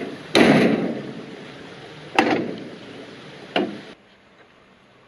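Three sudden heavy knocks, the first the loudest, each dying away over about a second.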